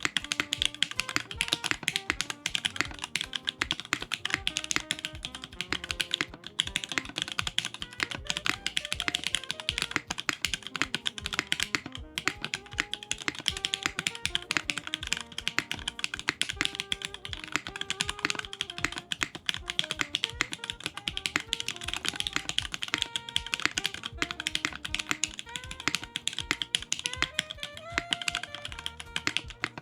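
Continuous fast typing on a Keycult 2/65 mechanical keyboard. It has lubed and filmed Cherry MX Black Hyperglide linear switches, a carbon fibre plate, no case foam and GMK keycaps, giving a dense run of keystrokes. Soft background music with a melody plays underneath.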